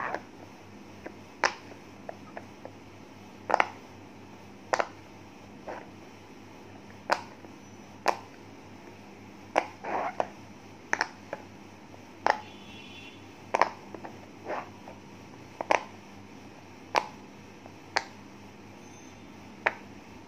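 Silicone pop-it fidget toy having its bubbles pressed in one by one, a short sharp pop about once a second at uneven spacing.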